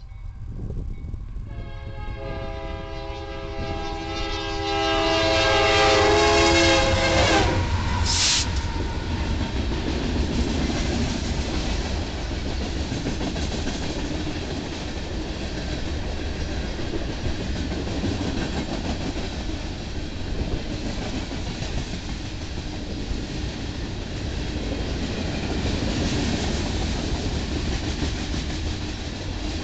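Union Pacific locomotive horn blowing a long chord as a train nears the grade crossing, cutting off about eight seconds in. Then a coal train's hopper cars roll past close by with a steady rumble and wheel clatter.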